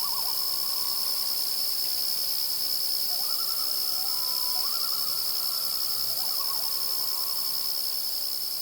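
Common loon calling in several bouts of wavering, quavering notes, one note held steady, over a loud steady high-pitched whine.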